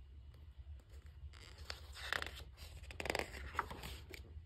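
Paper rustling and sliding, a run of short scrapes: the page of a picture book being turned. A low steady hum sits underneath.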